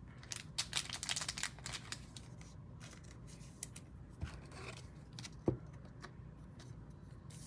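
Trading cards being handled and flipped through by hand: a quick run of light, crisp flicks and rustles in the first couple of seconds, then scattered clicks and one soft knock on the table about five and a half seconds in.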